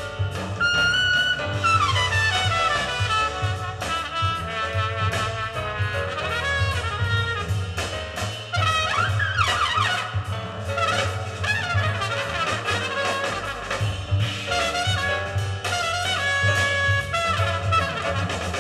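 Jazz record with horn melodies over a steady bass line, played back through Altec 604E coaxial loudspeakers driven by a handmade 300B single-ended valve amplifier.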